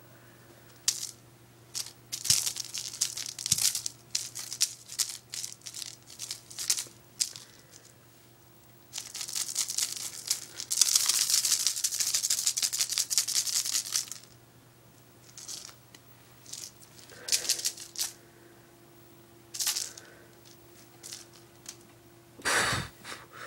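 Kittens batting and pawing at a pom-pom wand toy: irregular scratchy rattling and rustling, in short bursts with a dense, continuous stretch about halfway through.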